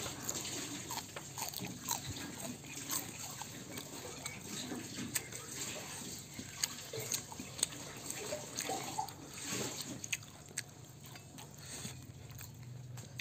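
Close-up mouth sounds of someone chewing a mouthful of rice and fried catfish: soft wet smacks and many small, irregular clicks.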